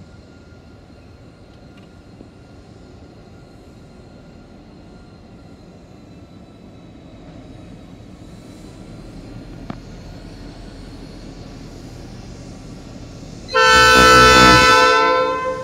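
A diesel freight locomotive, 8153, approaching with a low engine rumble that slowly grows, then sounding its horn near the end: one very loud blast of a chord of several tones, about a second and a half long, that cuts off suddenly.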